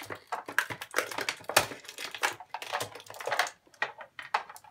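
Cardboard and clear plastic toy packaging being handled and pulled open, with irregular crinkling, rustling and small clicks.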